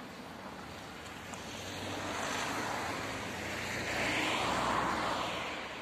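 A car approaching slowly and drawing up, its tyre and engine noise swelling to a peak about four to five seconds in and then easing.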